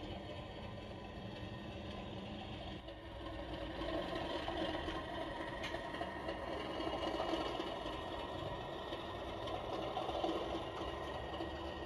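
Sound-decoder recording of a Class 37 diesel's English Electric engine running under power, played through the OO gauge model locomotive's small speaker, with the light mechanical whirr and rattle of the model running on its track. The sound grows louder about three seconds in as the locomotive comes close.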